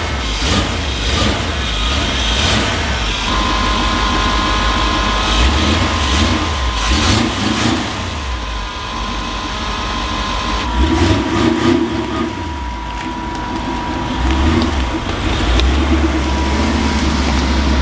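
A Jeep's carburetted engine being cranked and catching on its first start on a newly fitted electric fuel pump. It then runs unevenly and is revved several times, and settles into a steadier low idle near the end. A steady high whine sounds along with it.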